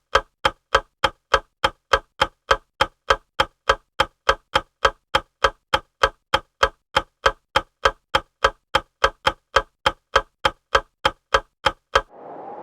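Rapid, even clock-like ticking, about three sharp ticks a second, with dead silence between them. It stops near the end, and a steady hiss with a faint tone begins.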